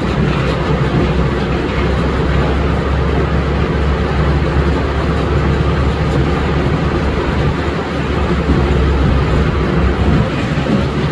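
Steam-engine-driven sawmill machinery running: a loud, steady mechanical rumble with a strong low hum.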